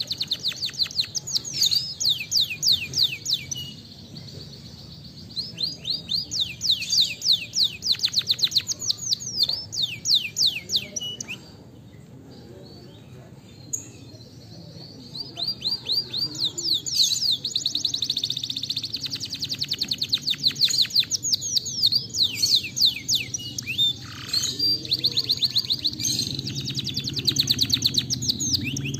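Domestic canary singing in long phrases of fast trills, each made of rapidly repeated sweeping notes. The song breaks off twice, once briefly and once for several seconds near the middle.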